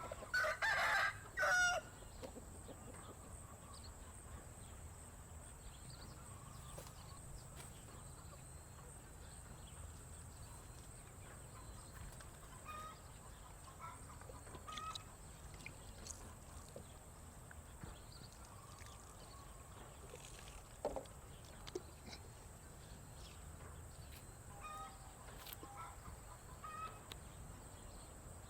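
A rooster crows once near the start, followed by scattered faint clucks and chirps from chickens. A thin, steady high-pitched tone runs underneath.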